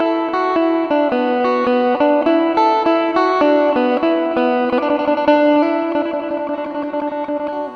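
Background music: a melody of single plucked-string notes, a few a second, easing off a little near the end.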